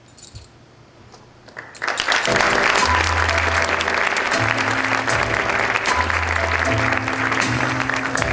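Quiet at first, then about two seconds in an audience bursts into applause as music with deep, sustained bass notes starts up. The applause and the music go on together.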